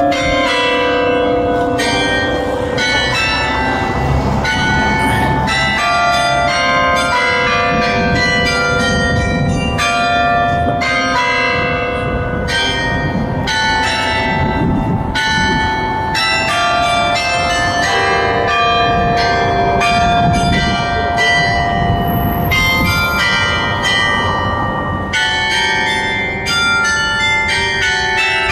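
Bells of the Clérigos Tower belfry ringing a tune. It is a continuous run of strikes at many different pitches, each one ringing on into the next.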